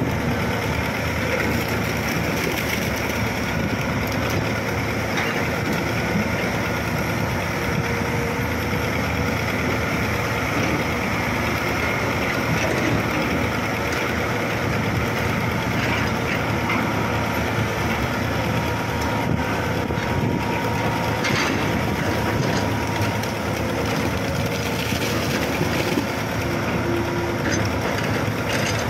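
Diesel engine of a Hitachi hydraulic excavator running steadily while the machine digs and swings its bucket.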